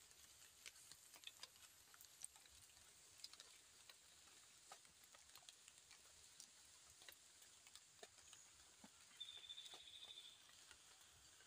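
Near silence: faint outdoor ambience with scattered soft ticks and, about nine seconds in, a brief high buzz lasting about a second.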